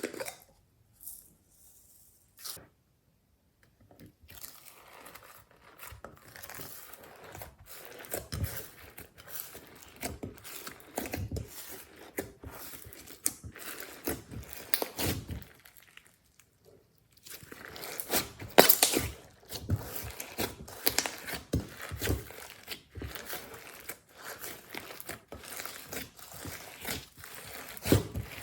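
Glossy slime with beads, clay and glitter mixed in, being squeezed and worked by hand: irregular sticky crackles, pops and crunchy clicks, with two short pauses.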